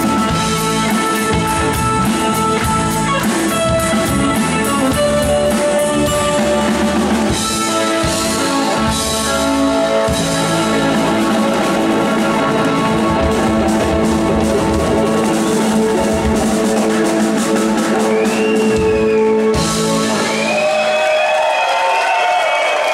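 Live rock band playing loudly: electric guitar, keyboards and drum kit. The music ends about 20 seconds in and the crowd starts cheering.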